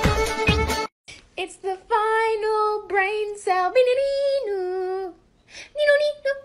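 Dance music with a steady beat that cuts off about a second in, then a high-pitched voice singing a short tune with held notes, pausing briefly near the end before going on.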